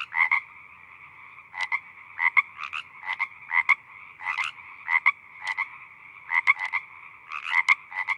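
Frogs croaking: short calls repeated every half second or so, often in quick pairs, over a steady chorus of more frogs behind them.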